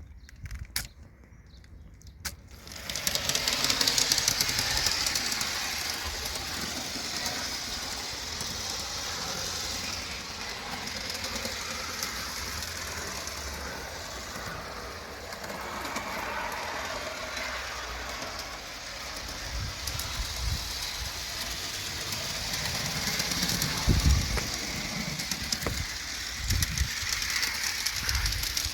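Meccano model's two small electric motors and differential-style gearbox running with a steady whirring, starting abruptly about three seconds in after a few clicks, with some low knocks near the end.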